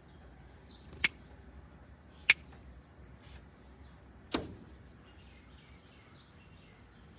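Three sharp knocks about a second or two apart, the third with a brief ring, over faint chirping of birds.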